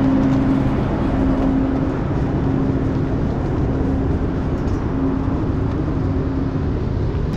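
A train running: a loud, steady rumble with a low hum that comes and goes.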